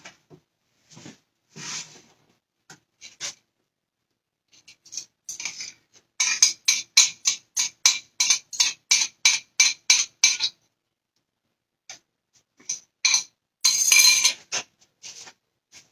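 A utensil clicking rapidly against a mixing bowl, about five strokes a second for roughly four seconds, as beaten eggs are scraped out into a skillet. Before it come scattered clinks, and after it a short, dense scrape-and-clatter burst.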